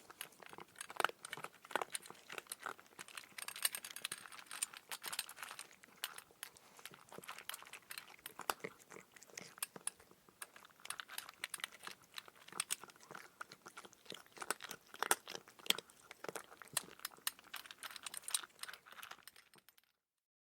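Cat eating dry kibble: a rapid, irregular run of small crunches and clicks as the pieces are bitten and chewed, stopping just before the end.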